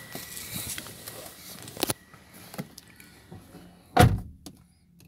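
A faint steady high tone in the first half, a sharp click about two seconds in, then a loud heavy thump about four seconds in that dies away.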